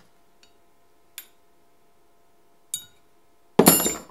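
Metal parts clinking as a steel rod is handled against the shaper's feed mechanism. Two sharp ringing clinks come about a second and a half apart, then a louder clattering clank near the end.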